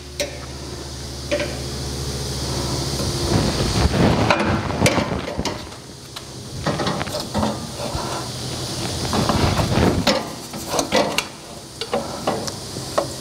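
Clinks, taps and knocks of hand tools and metal parts as work is done on a drag-race engine, over a steady low hum that fades after about three seconds.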